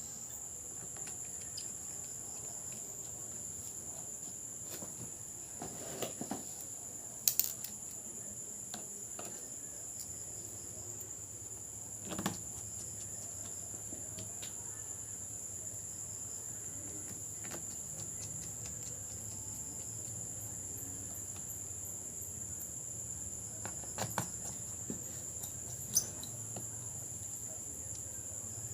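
A few small sharp clicks and taps of laptop parts and screws being handled, heard singly every several seconds over a steady high-pitched background trill.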